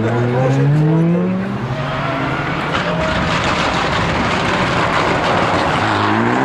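Rally car engines at full effort: a Ford Fiesta rally car revving up as it pulls away, then a Mitsubishi Lancer Evolution rally car arriving with a loud, rough engine note as it turns through the junction.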